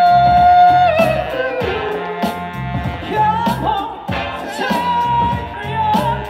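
Live hip hop/groove band playing: a bass and drum groove with a singer holding a long note that slides down about a second in, then another held note near the end.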